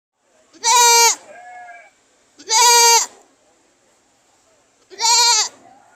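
Goat bleating: three loud, high-pitched calls about two seconds apart, each about half a second long with the pitch dropping at its end. A fainter bleat follows the first call.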